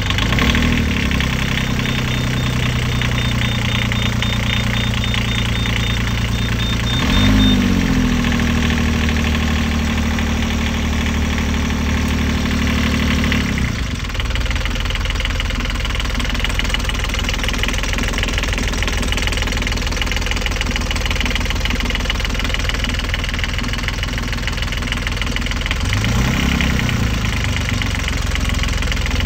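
Inboard marine engine running with the engine-bay hatch open. It idles steadily, the revs rise about a quarter of the way through and hold for several seconds before dropping back near the halfway point, and there is a brief rev up and down near the end.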